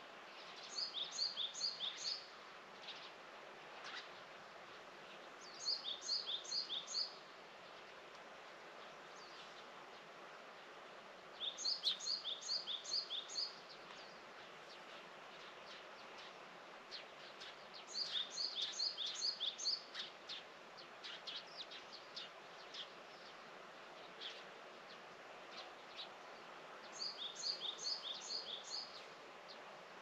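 A small songbird singing a short, fast phrase of repeated high notes, five times about every six seconds, over a steady faint outdoor hiss.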